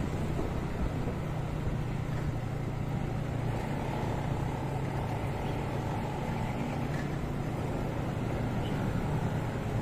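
Motorcycle engine running steadily at low road speed, with tyre and wind noise, among other motorcycles in slow traffic.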